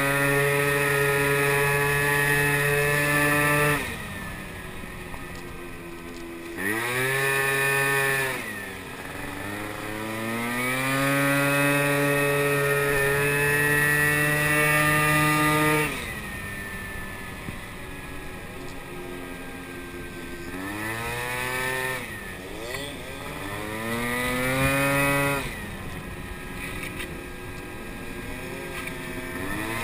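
Small moped engine heard from the rider's seat, running at high revs and then falling to a low, quieter note as the throttle is closed, five times over. Each time it climbs back up in pitch as the throttle opens, with wind noise over it.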